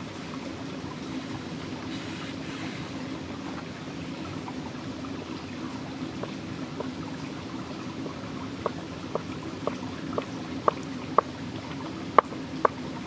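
Large cleaver-style knife chopping rolled fresh pasta dough into ribbons, sharp knocks on the floured board that come sparsely from about six seconds in and then about twice a second, loudest near the end. Underneath runs a steady rush of flowing river water.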